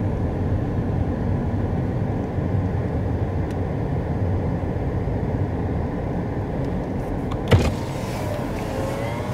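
A car rolling slowly, heard from inside the cabin: a steady low engine and road rumble, with one sharp knock about seven and a half seconds in.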